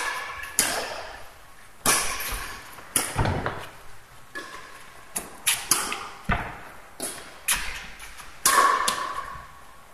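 Badminton rally: sharp strikes of rackets on a shuttlecock, irregular and about once a second, each echoing briefly in an indoor court hall.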